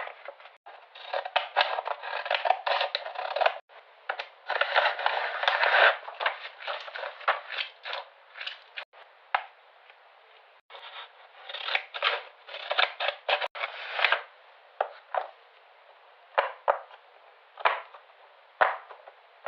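Small surprise packages being opened by hand: paper crinkling and tearing in dense rustling bursts, thinning out in the second half to scattered short sharp clicks and crackles.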